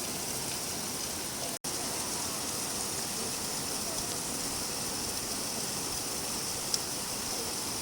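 Steady rain falling, an even hiss. The sound drops out for an instant about one and a half seconds in, and a single sharp drip-like tick comes near the end.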